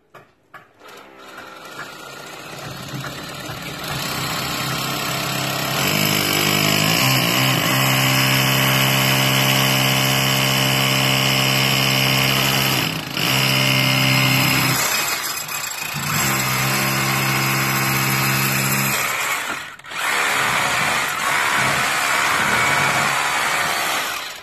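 Cordless rotary hammer drill boring a long masonry bit through a brick wall, building up over the first few seconds and then running steadily. It drops off briefly a few times as the trigger is eased, and stops near the end.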